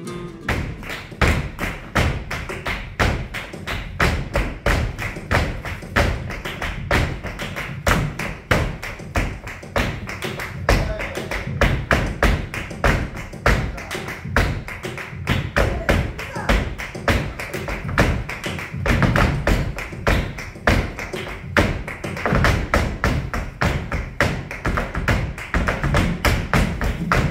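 Flamenco footwork: a dancer's shoes stamping and tapping in fast, irregular runs on the stage, over flamenco guitar and hand clapping.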